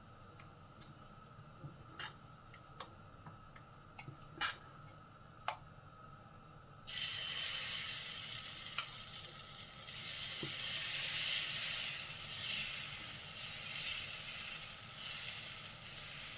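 A few sharp clicks, like a spoon knocking a bowl as batter is mixed. Then, about seven seconds in, a steady sizzle starts abruptly: dal chila batter of ground lentils cooking on a hot pan.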